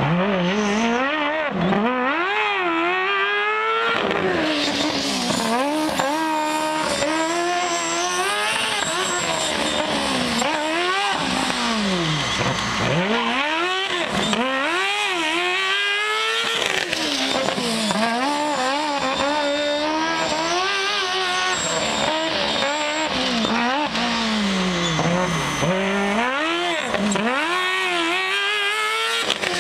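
Formula SAE race car engine revving up and dropping back again and again, its pitch climbing and falling every second or two as the car accelerates and brakes through the turns of a cone course.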